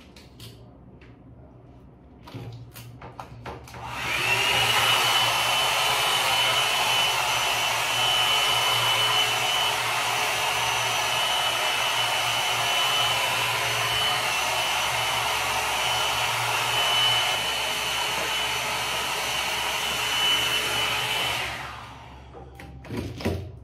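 Philco Soft Beauty Rose hot air brush (a 1200 W dryer brush) switched on about four seconds in: its motor winds up, then runs with a steady rush of blown air and a high whine as it dries a lock of hair. It switches off a couple of seconds before the end, with a few handling clicks before and after it runs.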